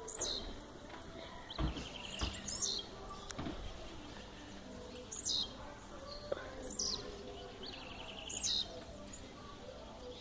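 Blue-black grassquit (tiziu) singing its short buzzy song about five times, each phrase a quick downward-sweeping note ending in a buzz, repeated every second or two. A couple of dull thumps sound early on.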